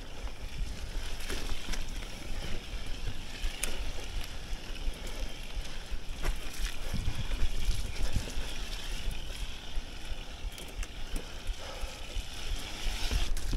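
Mountain bike ridden along a wet, muddy dirt trail: tyres rolling and splashing through mud, the bike rattling and clicking over bumps, with wind rumble on the microphone.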